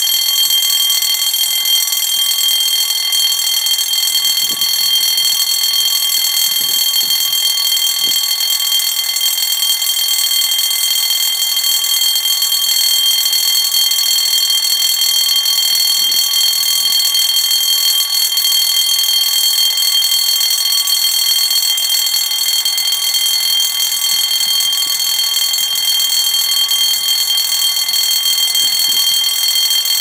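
Fire alarm bell ringing continuously and loudly with a steady, unbroken metallic tone, signalling a fire alarm activation. The bell is the one the uploader takes for a Potter PBA-1206.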